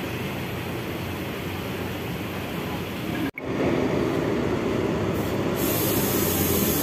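Bus engines running amid traffic rumble, a steady noise with no clear events. It drops out for an instant about three seconds in and comes back louder and hissier.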